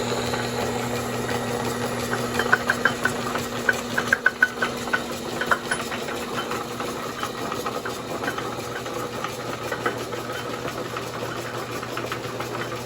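Monarch Model A engine lathe running with its spindle in back gear: a steady motor hum and gear whir, with a short run of sharp clicks from the gear train a few seconds in.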